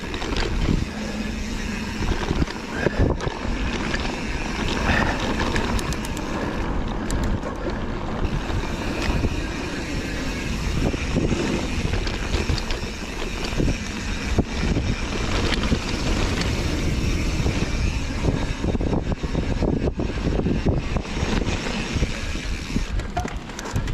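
Mountain bike riding on a dirt trail: steady rushing wind over the microphone and tyre noise, with scattered knocks and rattles of the bike over bumps.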